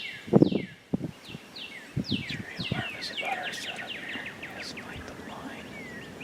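Songbirds singing, a run of many quick notes that each slide down in pitch, with a few short low thuds or rustles in the first two seconds.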